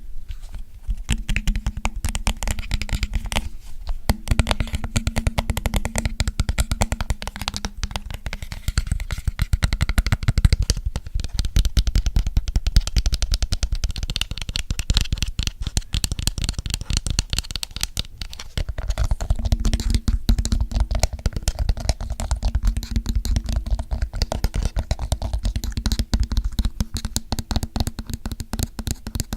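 Fast, dense finger tapping on an object close to the microphone, with a few brief pauses.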